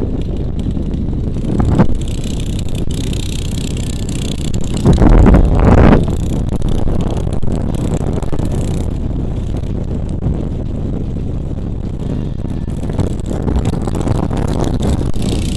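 Small-engine bike running flat out on a speed run, with its Amazon replacement carburetor and upsized jet, while heavy wind buffets the microphone. The wind noise is loudest about five to six seconds in.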